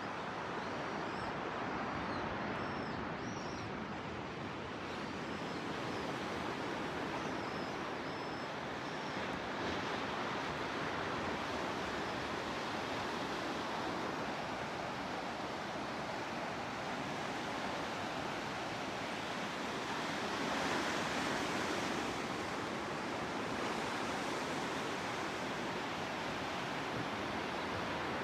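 Gentle ocean surf, a steady wash of calm waves breaking on the beach, with a few slightly louder swells in the second half.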